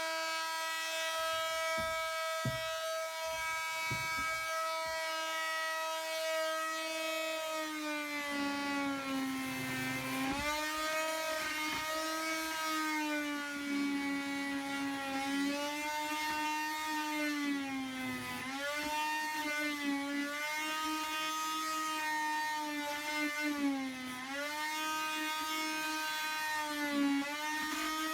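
Oscillating multi-tool running with a steady buzzing whine. After several seconds its pitch starts to sag and recover again and again as the blade is loaded in the cut.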